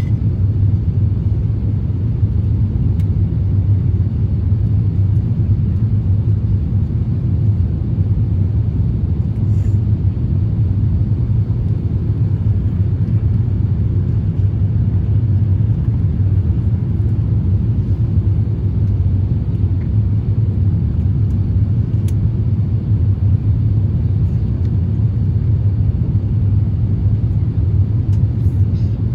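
Steady low drone inside the passenger cabin of an Airbus A350-1000, from its engines and the airflow over the fuselage, holding even throughout.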